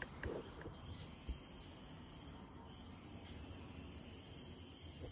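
Faint, thin high-pitched whir of a micro-scale RC car's tiny electric motor driving, with a few faint ticks in the first second and a half.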